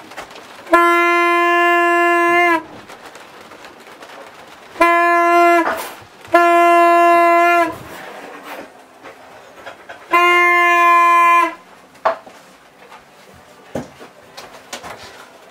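Four long blasts of a single-pitched horn, each lasting one to two seconds, the second and third close together; the pitch dips slightly as each blast ends.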